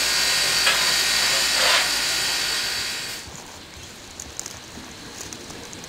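Steam locomotive PB15 448 venting steam in a loud, steady hiss that dies away about halfway through, leaving a much quieter background with faint clicks.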